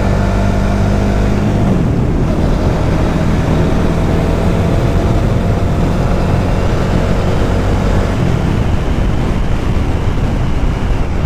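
Motorcycle engine running at a steady riding speed, with wind and road noise over it. The engine note drops in pitch about two seconds in.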